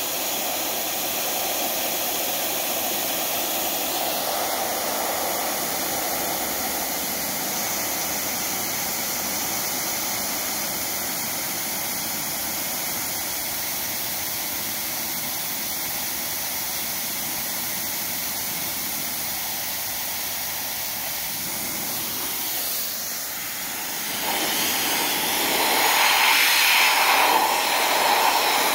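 Compressed-air blow gun blowing a steady hiss of air over metal parts, louder near the end.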